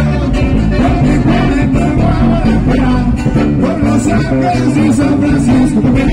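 Live regional Mexican sierreño music played through a PA: acoustic guitars strummed and picked under a button accordion melody.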